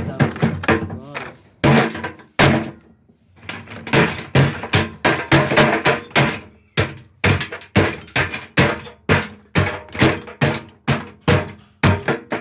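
Claw hammer repeatedly smashing terracotta flower-pot shards in a metal wheelbarrow. The hard strikes come in quick runs, settling into about three a second over the last five seconds.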